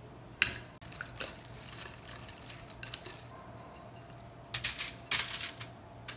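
Kitchen handling noises: a sharp clink about half a second in and a few lighter clicks, then two short bursts of rattling and slapping near the end as grilled chicken wings are tossed in barbecue sauce in a ceramic bowl.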